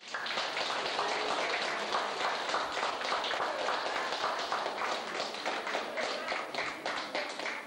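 A roomful of people clapping, with voices mixed in among the applause; it cuts in abruptly at the start and keeps up steadily.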